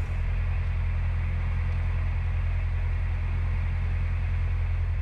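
Narrowboat's engine running steadily under way, a low, even hum.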